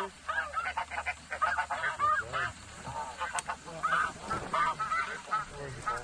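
Snow goose calls: many short honks overlapping in a constant chatter.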